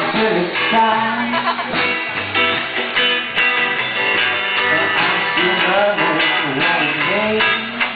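Live band playing an improvised song: a guitar played along with a man singing into a microphone.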